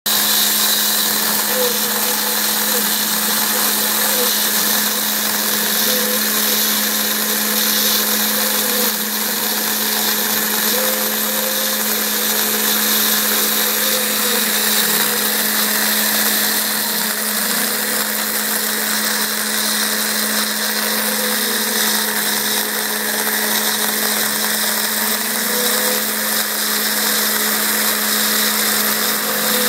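Small CNC router's spindle running steadily as its end mill cuts a pocket into a foam block, a constant hum over a whirring hiss. Short whines rise and fall in pitch every few seconds as the machine's axes move.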